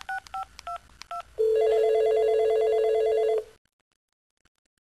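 Cell phone keypad beeping as a number is dialled, about five quick tones in the first second. Then a telephone ring, a steady pulsing tone lasting about two seconds, which cuts off into silence as the call rings through.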